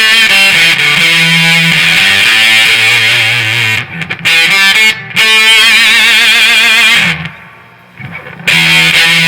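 Electric guitar played through a fuzz pedal with its treble turned all the way up, into a Marshall DSL 40C amp, giving a heavily distorted tone. The sound cuts off sharply in a few short gaps and one longer drop near the end, as the noise gate closes between phrases.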